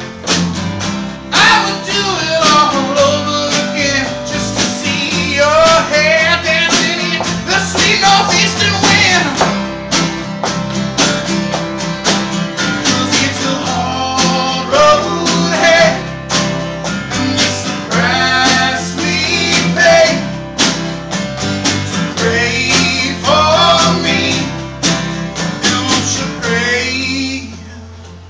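Live country-rock band playing: a sung vocal over strummed acoustic guitar, electric guitar, steel guitar and drums. The music drops away near the end.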